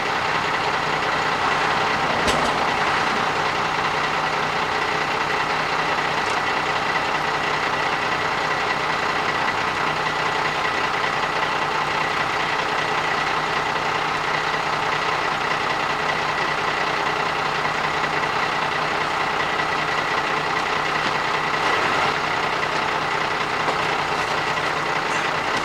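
Diesel truck engine idling steadily, with a single sharp knock about two seconds in.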